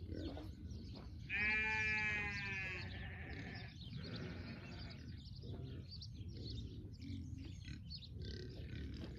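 A sheep, a Dorper, bleating once: one long call starting about a second in and lasting about a second and a half, trailing off.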